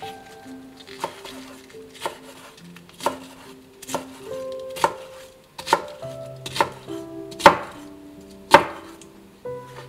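Kitchen knife slicing through red cabbage onto a wooden cutting board, about one cut a second, each ending in a sharp knock on the board. Nine cuts, growing louder, the two loudest near the end.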